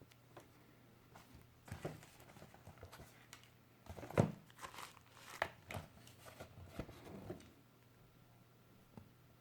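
Packaging being handled while a keyboard is unboxed: irregular crinkling and rustling with light clicks and knocks, busiest through the middle and dying away near the end.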